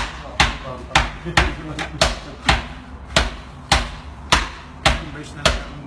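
Hand hammers striking a wooden board laid on top of the brickwork of a brick bread oven, two men taking turns so that sharp knocks fall about twice a second. They are knocking the oven's last brick into place.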